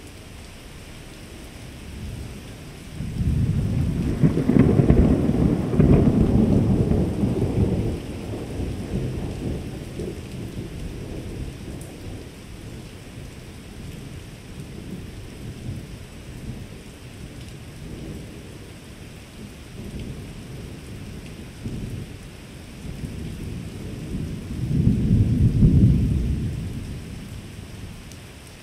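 Rolling thunder: a deep rumble builds a few seconds in, is loudest for several seconds, then grumbles on more quietly. Near the end a second loud rumble swells and fades.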